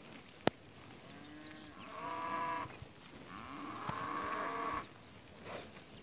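Cows mooing in a grazing herd: two drawn-out calls, the second longer than the first. A sharp click about half a second in is the loudest moment.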